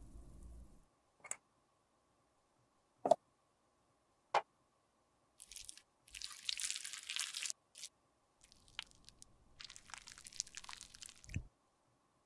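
Three sharp clicks in the first few seconds, the middle one loudest. Then a hobby knife blade scrapes across the top of an aluminium lipstick mold, shaving off the excess set lipstick in crackly scraping strokes, with a knock near the end.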